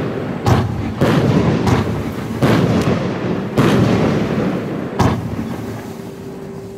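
Funke Silberpalmen Blinker 16-shot fireworks battery firing. About five sharp bangs come at uneven intervals as titanium palm shells break, each trailing off over a second or so.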